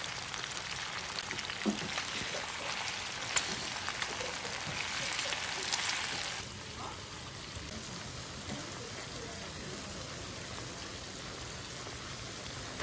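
Shrimp, mushrooms and broccoli sizzling and crackling in hot oil in a frying pan, with a few sharp clicks of tongs. About six seconds in it changes to a quieter, duller sizzle of steaks cooking in butter on a griddle pan.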